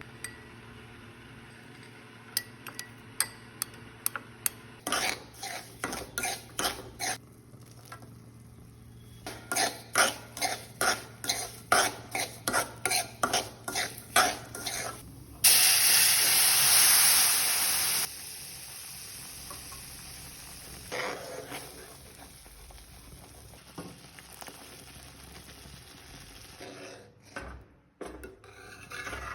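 A spoon stirring and scraping rawa (semolina) halwa in a metal pan, a long run of quick clinks. About fifteen seconds in comes a loud burst of sizzling that lasts about three seconds, then quieter stirring.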